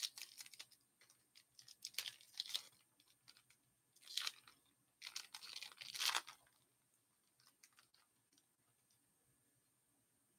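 Foil wrapper of a hockey-card pack being torn open and crinkled as the cards are slid out, in several short crackling bursts over about the first six seconds.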